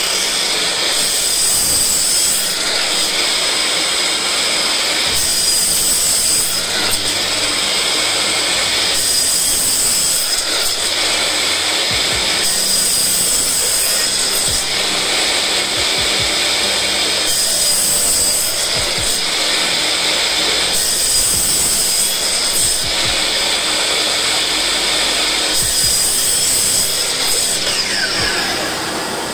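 Makita LS1219L 12-inch sliding compound miter saw's 1800 W motor running at full speed as its blade cuts through thick wooden blocks, the sound swelling and easing every two to three seconds. Near the end the pitch falls as the blade winds down.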